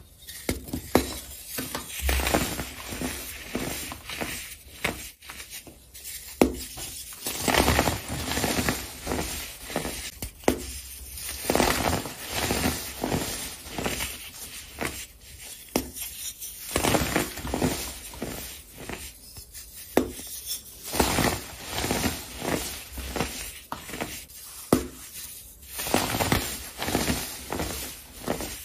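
Hands crushing molded blocks of baking soda: an irregular run of crisp crunches and crackles as the hard shapes snap and crumble into powder.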